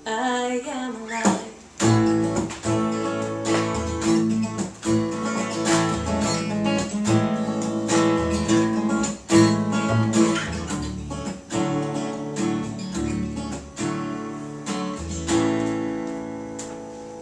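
Acoustic guitar strummed over a plucked upright double bass, an instrumental passage of a folk song played live. Near the end a last chord is held and rings out, fading away.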